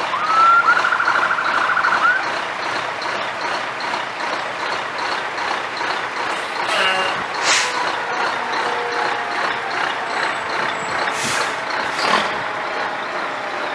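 Fire engines running in slow procession: a short siren burst rises and warbles quickly for about two seconds at the start, then air brakes hiss a few times over the steady engine noise.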